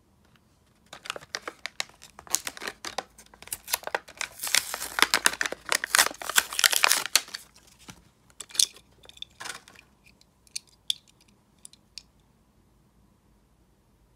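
A Hot Wheels blister pack being torn open: cardboard tearing and the clear plastic blister crinkling, loudest in the middle. Then a few light clicks and taps as the die-cast car is worked out of the plastic blister.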